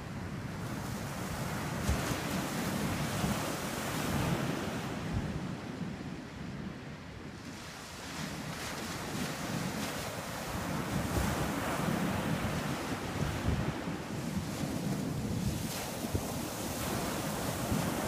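Small ocean waves breaking and washing up a sandy beach, the surf swelling and easing, with wind buffeting the microphone.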